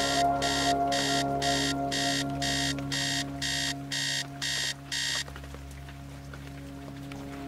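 iPhone alarm ringing: a high-pitched electronic beep repeated about twice a second, cutting off abruptly about five seconds in.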